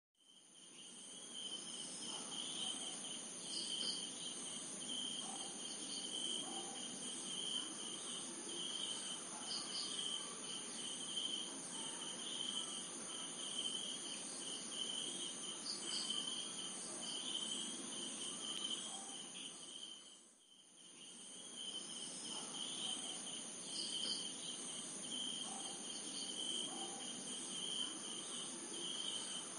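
Night chorus of crickets and other insects: steady high trilling in several pitches, one of them pulsing, that dips briefly about two-thirds of the way through.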